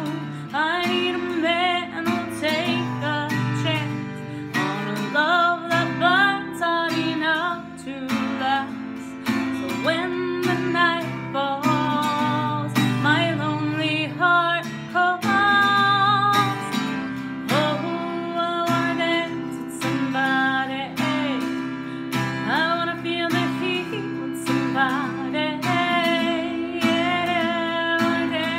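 Acoustic guitar strummed in steady chords with a voice singing a wavering melody over it.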